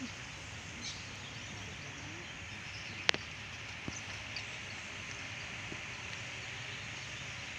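Quiet open-air ambience: a steady outdoor hush with a few faint bird chirps and one sharp click about three seconds in.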